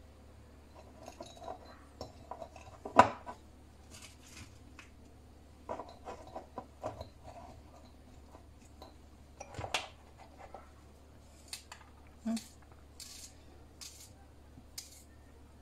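Scattered light clicks and knocks of small glass jars handled on a countertop while dried tomato pieces and garlic cloves are pressed into them by hand, with one sharper knock about three seconds in.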